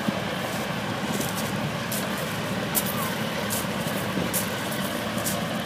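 Steady engine and fan drone of a Hovertravel passenger hovercraft idling on its landing pad while passengers board, with frequent short crackles over it.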